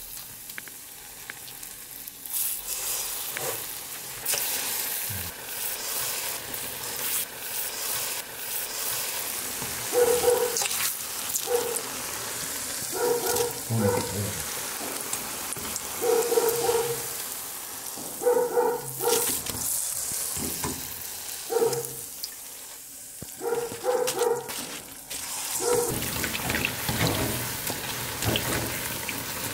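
Awama dough balls deep-frying on their first fry in hot oil in a steel pan: a steady sizzle with crackles. From about ten seconds in, a dog barks in short bursts over it, again and again until near the end.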